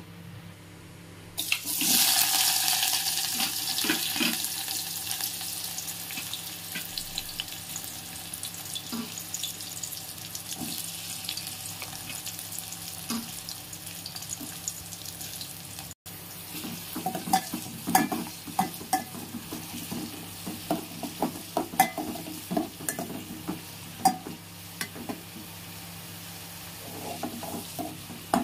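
Sliced onions tipped into hot oil in an aluminium pot: a sudden loud sizzle about a second in that slowly dies down. In the second half a metal spoon stirs the onions, clinking and scraping against the pot over a steady sizzle.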